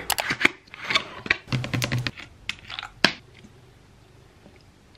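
Small plastic and glass cosmetic containers and brushes being handled and set down on a vanity: quick clicks and clatter, with one sharp knock about three seconds in. After that only a few faint ticks.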